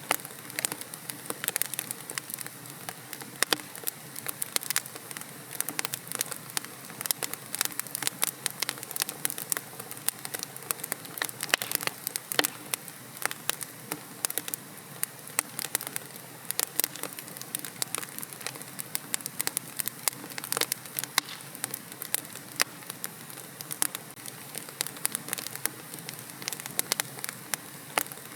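Wood logs burning in a fireplace: a steady low hiss with dense, irregular crackles and snaps throughout.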